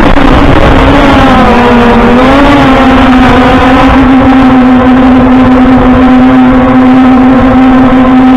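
Overmax X-Bee Drone 8.0 quadcopter's motors and propellers whining in flight, heard through its own onboard camera, over a low rumble of wind on the microphone. The pitch wavers up and down for the first few seconds, then holds steady.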